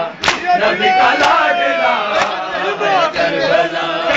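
Crowd of men chanting a Shia nauha (mourning lament for Hussain) together, many voices overlapping, with sharp chest-beating (matam) strikes about once a second.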